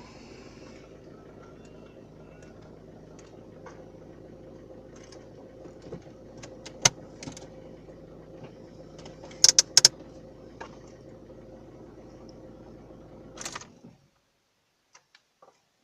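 Ford Fiesta 1.4 TDCi diesel engine running at a steady idle with a constant hum, broken by sharp clicks: one about seven seconds in, three in quick succession near ten seconds, and another near the end. The sound cuts off suddenly about fourteen seconds in.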